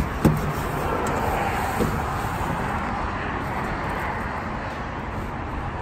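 Hanger hooks clicking against the metal rail of a wardrobe box, twice at the start and once more a little under two seconds in, over a steady outdoor rumble.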